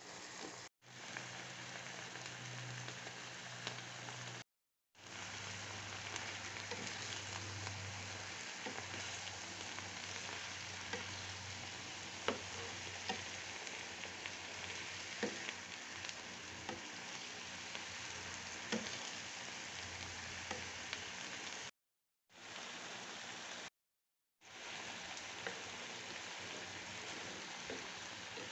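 Vegetables sizzling in a wok while a wooden spatula stirs and tosses them, with scattered light taps against the pan. The sound cuts out briefly a few times.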